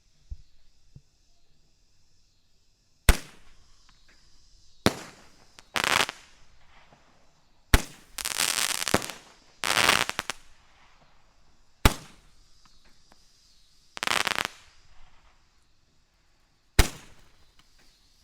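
Black Cat 'Full Bore Barrel' Roman candle firing. There are five sharp launch pops a few seconds apart, and between them several short bursts of loud hissing crackle from the shots' effects.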